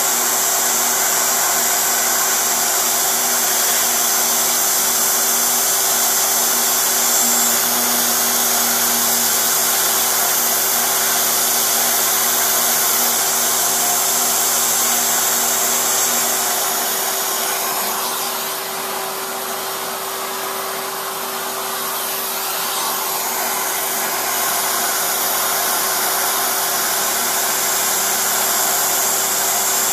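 Small CNC mill's high-speed spindle running steadily as an end mill cuts a clear plastic block for a hall-effect home switch housing, giving a steady whine with rushing air noise. It eases off a little for a few seconds past the middle, then returns.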